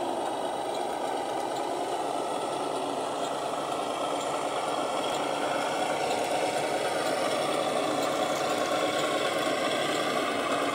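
Simulated diesel truck engine sound of an RC Scania truck, running steadily and getting a little louder over the second half.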